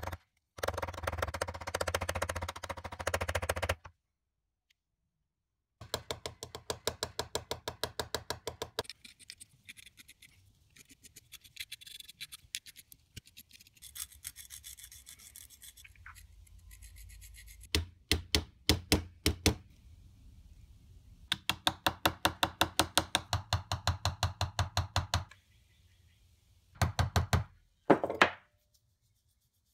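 Small hammer tapping on metal, peening the pins of a folding pocketknife against a vise anvil. The taps come quick, several a second, in about five separate runs, with a softer stretch of faint noise in the middle.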